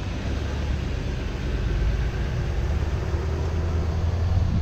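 Car on the move: a steady low rumble of engine and road noise, getting a little louder about two seconds in.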